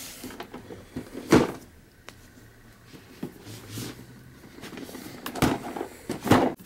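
Cardboard figure box being handled and turned over. There is one sharp knock about a second and a half in, then a few knocks and scrapes near the end.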